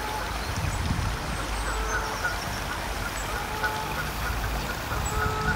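Birds calling at a pond in many short chirps and calls, over a low steady rumble.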